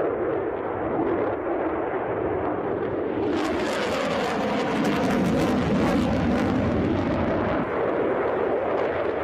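Sukhoi Su-57 fighter jet flying: a steady jet-engine roar. About three seconds in, a harsher crackling hiss joins it.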